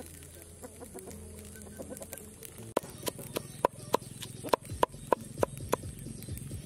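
Heavy cleaver chopping garlic on a wooden chopping board: sharp knocks of the blade on the wood, about three a second, starting a little under three seconds in. Before the chopping starts, chickens cluck in the background.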